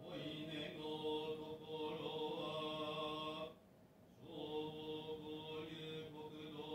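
A man chanting the Buddhist dedication of merit (ekō) on long, steadily held notes, with a short pause for breath a little past the middle.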